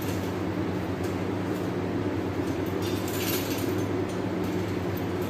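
Steady mechanical hum of machinery running in a butchery cutting room, an even low drone with a hiss over it.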